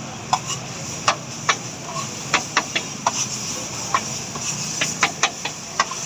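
Quick, irregular sharp taps and clicks of metal cooking utensils, two to three a second, over a steady hiss of food frying on a griddle.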